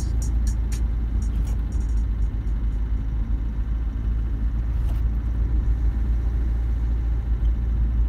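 Steady low rumble of a vehicle driving along the road, with a few faint light ticks in the first couple of seconds.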